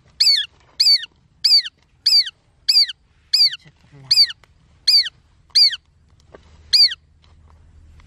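Shikra calling: a run of about ten sharp, downward-slurred notes, roughly one every two-thirds of a second, with a short pause before the last.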